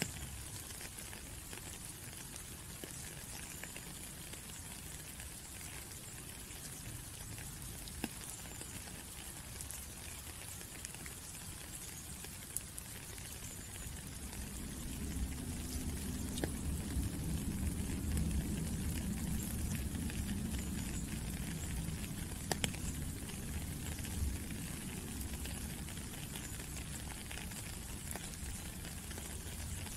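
Steady rain falling on a puddle and gravel path: a fine, even hiss with scattered sharper drips. A low rumble swells in about halfway through and eases off near the end.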